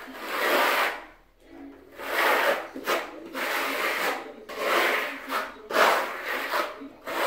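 Steel trowel scraping across a concrete floor as it spreads a thin coat of microcement, in a series of sweeping strokes about one a second.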